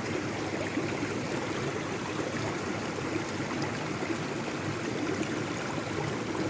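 Mountain stream water running over rocks, a steady rushing flow.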